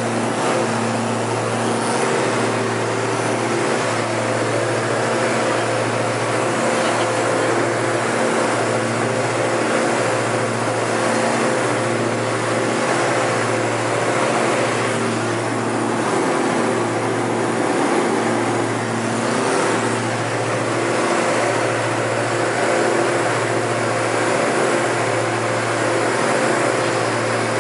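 Twin Austro AE300 turbodiesel engines and propellers of a Diamond DA42-NG at climb power, heard inside the cabin as a loud, steady drone. The drone swells and fades in a slow, regular throb about every two seconds, the beat of the two engines turning at slightly different speeds.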